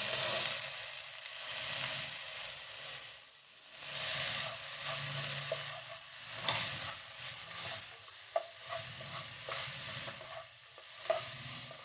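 Chopped onions and garlic sizzling in hot oil in a nonstick wok on high heat, stirred with a plastic slotted spatula. The sizzle swells and fades with each stir, and the spatula knocks against the pan a few times in the second half.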